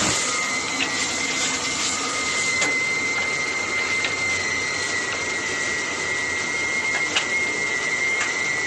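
Brake lining drilling machine running with its dust extraction: a steady rushing noise with a high whine held throughout, and a few sharp clicks.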